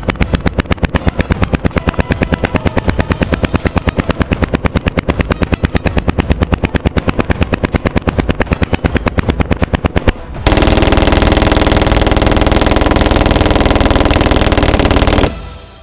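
Full-auto Glock 17 pistol firing from a 100-round drum magazine: a long string of evenly spaced rapid shots for about ten seconds, then a denser, unbroken run of fire for about five seconds that cuts off sharply.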